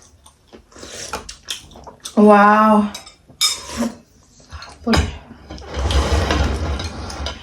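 A spoon clinks against a bowl of soup, and the soup is slurped in one long noisy sip.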